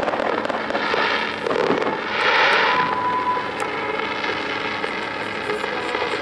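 Fireworks fired from a small display helicopter in flight: hissing, crackling bursts about a second in and a louder one around two seconds in, then a quieter stretch.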